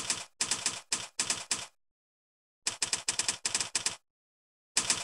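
Typing sound effect: rapid typewriter-style key clicks in quick runs, each lasting a second or so. There are short silent gaps between the runs, and a third run starts near the end.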